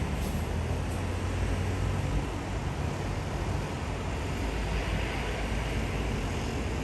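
Steady low rumble of distant city road traffic, an even wash of noise with no single vehicle standing out.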